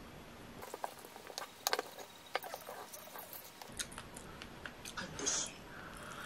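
Quiet eating sounds: a wooden spoon clicking and scraping against a black earthenware ttukbaegi as kimchi and flying-fish-roe rice is stirred and scooped, along with chewing. The clicks come in a run from about a second in and grow sparser later.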